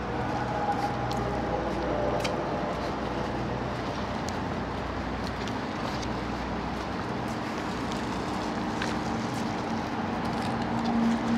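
Steady low hum of engines in open city air, with a steady tone that grows stronger near the end.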